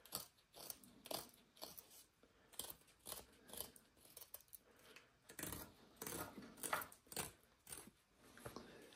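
Carbon-steel Yakut knife blade shaving a thin wooden stick: a string of short, quiet slicing strokes, irregularly spaced, about one or two a second.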